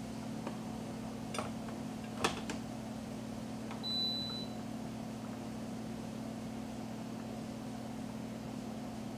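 Steady low electrical hum from a kitchen appliance, with a few light clicks and one short high beep about four seconds in.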